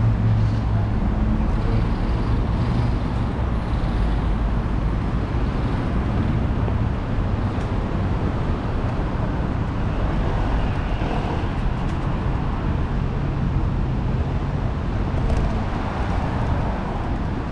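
Road traffic on a busy city street: vehicles running past in a continuous low rumble of engines and tyres.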